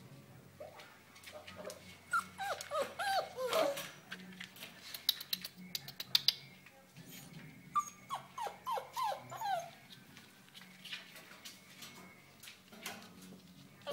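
Young puppies, almost six weeks old, whimpering and yelping in short cries that fall in pitch, in two runs: one a couple of seconds in and another about eight seconds in. A few sharp clicks come between the two runs.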